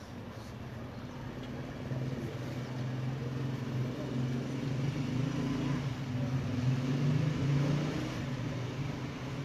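A motor vehicle's engine running with a steady low hum. It grows louder a couple of seconds in and eases slightly near the end, with street noise around it.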